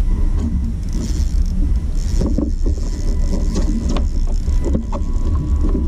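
Wind buffeting the action camera's microphone: a dense, steady low rumble, with scattered short knocks from about two seconds in.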